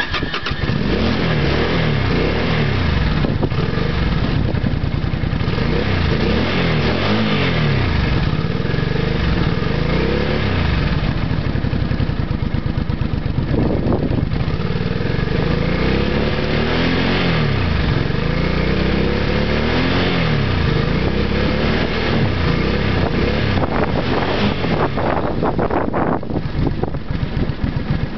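Exhaust of a Suzuki Intruder Classic 400 V-twin, running through a YLP T-6 header pipe and a Harley FLT stock silencer with a catalytic converter, revved repeatedly so the note keeps rising and falling. Strong wind on the microphone adds a rough noise.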